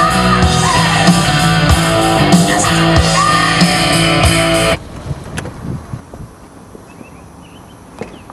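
Loud rock music with electric guitar, cutting off abruptly a little past halfway through. What follows is a much quieter outdoor background with a few faint high chirps.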